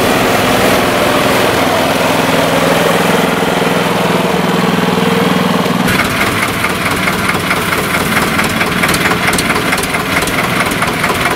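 Tractor engine running steadily with the disinfectant sprayer at work. About six seconds in the sound changes abruptly to an engine running with a quick, regular beat.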